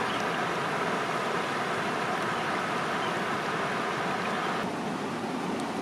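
Shallow river running over rocks: a steady rush of flowing water, a little duller near the end.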